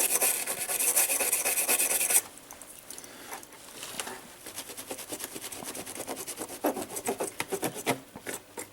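Toothbrush bristles scrubbing a circuit board wet with carburetor cleaner, quick back-and-forth strokes that stop abruptly about two seconds in. After that, only faint scattered clicks and light handling.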